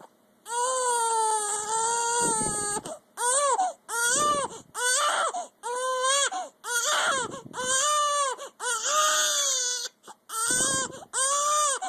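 Baby crying hard, upset by hiccups: one long cry about half a second in, then a string of shorter cries of about a second each, each rising and falling in pitch, with quick breaths between and a short pause near the end.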